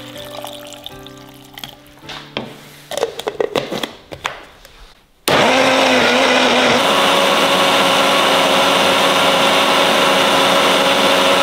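A few clicks and knocks, then about five seconds in a countertop blender switches on and runs steadily at high speed, grinding shallots, garlic and other aromatics with water into a spice paste. Its pitch settles slightly lower a second after starting as the contents break down.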